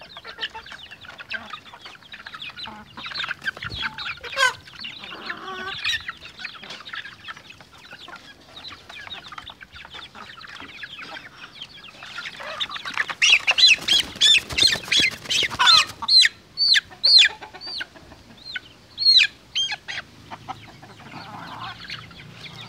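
Flock of young native chickens clucking and peeping as they feed. A little past halfway comes a loud flurry of calls and clatter, followed by a run of short, falling peeps.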